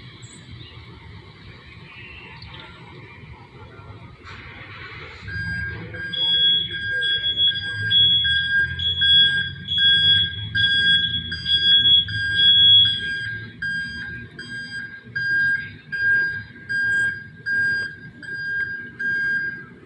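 An electronic warning beeper starts about five seconds in and beeps steadily, about one and a half beeps a second, over a low rumble.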